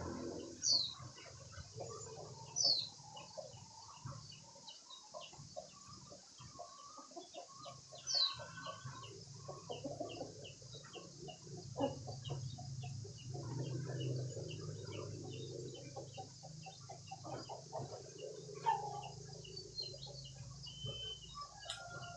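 Chickens clucking, with a few loud, high, falling peeps and many short clucks and ticks over a steady low hum.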